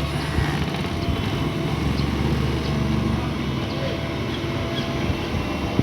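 Diesel engine of heavy earthmoving machinery running with a steady low drone.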